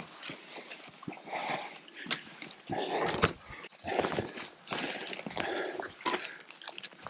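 Footsteps crunching on a dirt road, irregular steps with some clothing and gear rustle.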